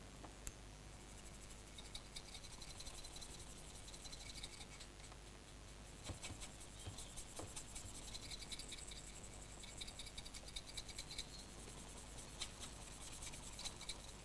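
Faint scratching and rubbing of paintbrush bristles working over a model Class 31 diesel locomotive body in quick, light strokes, blending dots of grey oil paint. The strokes come in two busier spells, from about two seconds in and again in the second half.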